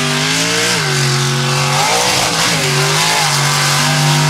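Mega truck racing engine revving hard under load. Its pitch holds high, drops about a second in, dips again around two seconds in, then climbs back up as the throttle is eased and reapplied.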